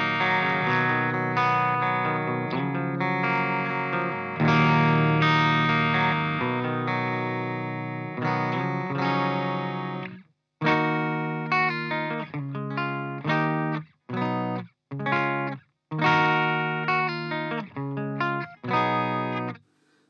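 Electric guitar played through an EVH 5150III LBX valve amp head (EL84 power tubes) on its clean channel, with no pedals. Chords are left to ring for about ten seconds, then comes a run of short, choppy chords with brief silences between them.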